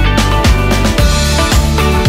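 Background music with a steady beat: drum strokes about twice a second over sustained bass notes.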